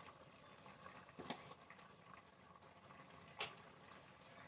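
Faint simmering of a pot of curry, with two small metallic clinks of a steel spoon, the second, a little past three seconds in, the sharper.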